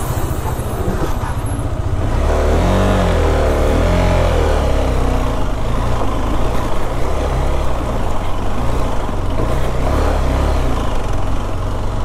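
KTM 390 Adventure's single-cylinder engine running at low speed as the bike rides slowly over a rough, rocky track, its note wavering about two to five seconds in.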